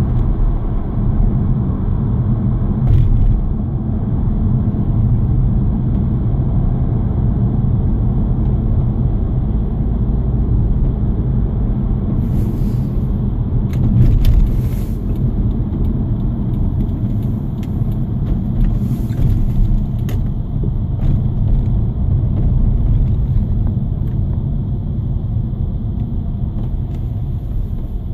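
Steady low rumble of a car's engine and tyres on the road, heard from inside the cabin while driving, with a few brief hissing bursts around the middle.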